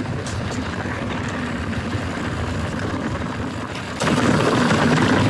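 Commencal Meta TR mountain bike rolling fast down a dirt singletrack: steady wind rush on the helmet-camera microphone mixed with tyre noise on dirt and the bike's rattle. The noise jumps suddenly louder about four seconds in.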